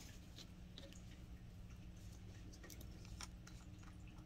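Faint, scattered light clicks and ticks from hands handling a glass dip pen and a small plastic ink sample vial, over a low steady hum.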